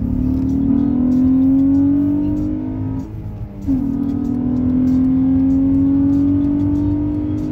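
Acura TL SH-AWD's 3.7-litre V6, heard from inside the cabin, pulling under acceleration with its pitch rising. About three seconds in the sound dips and drops in pitch for an upshift of the manual gearbox, then climbs again in the next gear.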